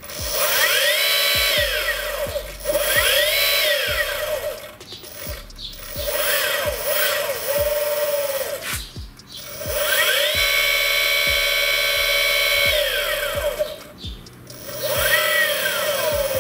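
Rewound Cyclone brushless e-bike motor spinning up under throttle and winding down again about five times, a high whine rising in pitch, levelling off at top speed and falling; the longest run holds top speed for a few seconds in the second half. The freshly rewound motor runs smoothly up to its full speed.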